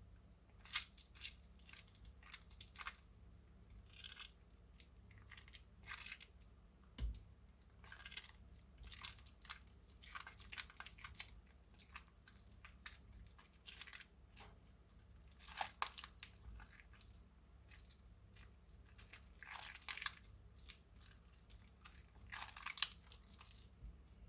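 Soaked glycerin soap plates being handled and washed by hand: irregular short crackles and scrapes, some coming in quick clusters.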